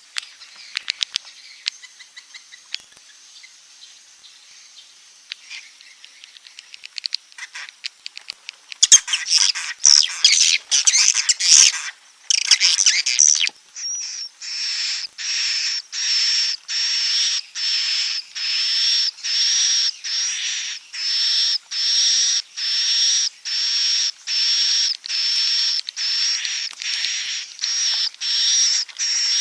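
Recorded swiftlet calls of the kind played as a roosting lure in swiftlet houses. Scattered high ticks and chirps at first, then a dense burst of twittering about nine seconds in, then a steady run of buzzy twittering calls, about three every two seconds.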